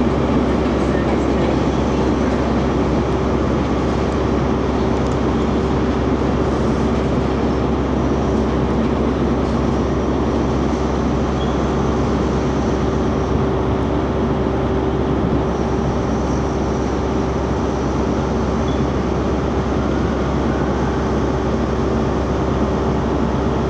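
Steady railway noise of an InterCity 225 electric train pulling slowly away into a tunnel: a constant hum with a steady whine running under it, holding level without rising or fading.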